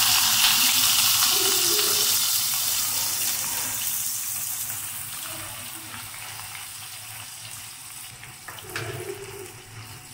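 Freshly added sliced red onions sizzling in hot oil in a wok. The hiss starts loud and fades steadily, with a light knock or two about eight and a half seconds in.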